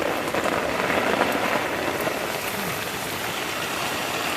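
Heavy rain falling steadily: a continuous hiss with a dense patter of drops.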